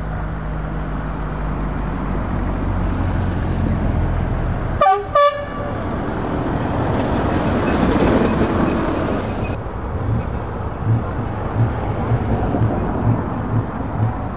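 Heavy truck engines running as lorries drive past, with two short blasts of a truck horn about five seconds in. In the last few seconds a low, regular pulsing comes about twice a second.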